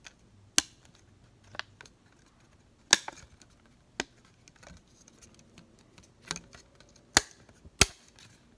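Silicone pop-it fidget toy bubbles being pressed: about seven sharp pops at irregular intervals.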